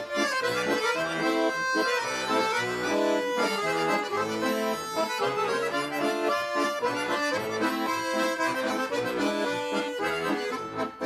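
Bayan (Russian button accordion) playing an instrumental chastushka tune between sung verses, its chords changing in a steady rhythm.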